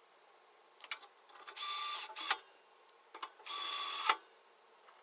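Electric screwdriver driving the power supply's attachment screws into the screw posts: two short runs of about half a second each, with small clicks of handling between them.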